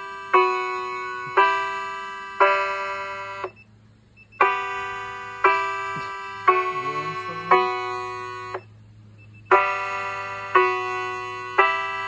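Electronic alert chime played loud through the outdoor horn loudspeakers of a homemade warning-siren system: a four-note phrase of struck, ringing tones about a second apart, repeated after a short pause. The chime starts a fresh phrase twice. A faint steady low hum runs underneath.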